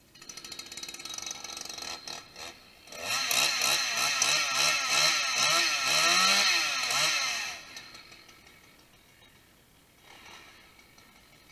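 Two-stroke petrol chainsaw starting up and running at a low idle. About three seconds in it is revved hard for roughly four seconds, the pitch rising and falling several times, then it settles back to a quiet idle.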